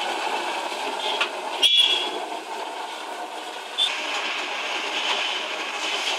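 Boondi (gram-flour batter drops) deep-frying in a large kadai of hot oil: a steady, dense sizzle. Twice the metal slotted ladle clinks against the pan, the louder one about a second and a half in and a lighter one near four seconds.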